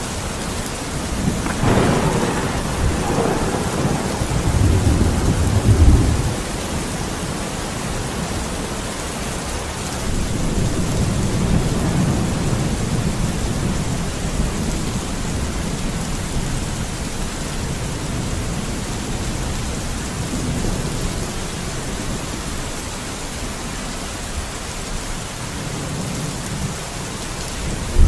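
Steady rain with thunder. A thunderclap about two seconds in rolls into a low rumble that peaks around six seconds. A softer rumble follows from about ten seconds, and a fresh clap breaks right at the end.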